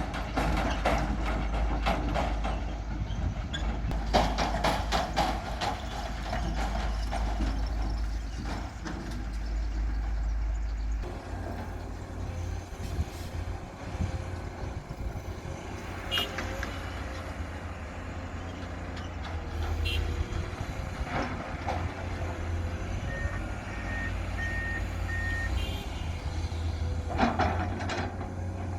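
Heavy diesel machinery at work: a Komatsu PC210 excavator loading a dump truck, engines running with metallic clanking and knocking through the first ten seconds or so. The engine note shifts about 11 s in, and a reversing alarm beeps four times near the end.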